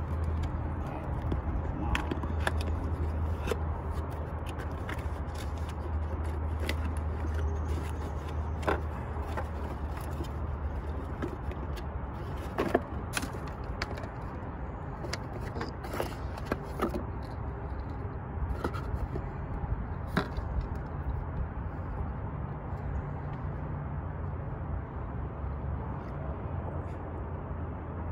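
Scattered clicks, taps and rustles of cardboard spark plug boxes and a rubber-booted spark plug wire set being handled, over a steady low rumble.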